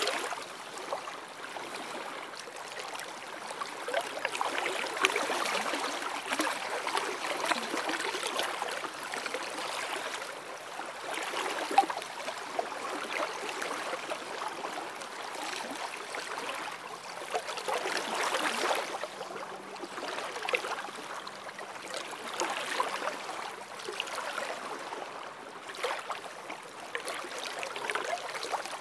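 Small waves lapping on a sandy lake shore, the wash swelling and easing every few seconds.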